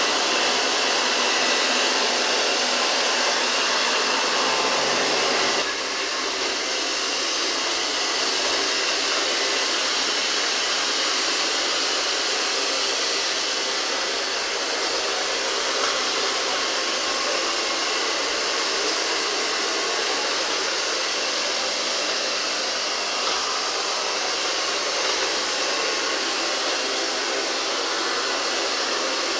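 GRUNDIG VCR 2330 robot vacuum cleaner running, its suction motor and brushes making a steady rushing noise that drops slightly in level about six seconds in.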